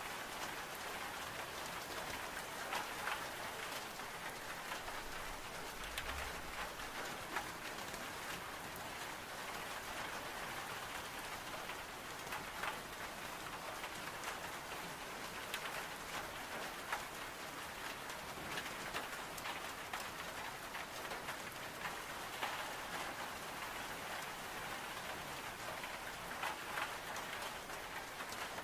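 Steady rain on window glass mixed with a crackling wood-burning stove: an even hiss with scattered sharp pops and ticks.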